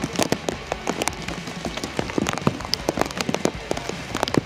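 Rapid, irregular pattering of many sharp taps, of the kind raindrops make striking a surface close to the microphone.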